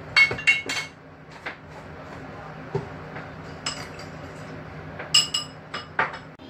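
Utensils and ceramic dishes clinking on a kitchen counter: a quick run of three sharp, ringing clinks at the start, then scattered single clinks through the rest, over a steady low hum.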